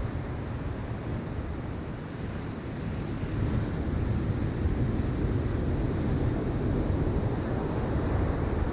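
Ocean surf breaking and washing up a sandy beach in a steady roar, with wind rumbling on the microphone. It swells a little about three seconds in.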